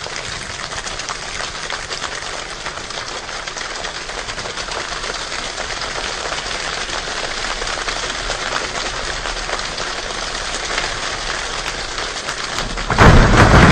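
Steady rain falling, a dense patter of drops. Near the end it suddenly jumps to a much louder, fuller rush of noise.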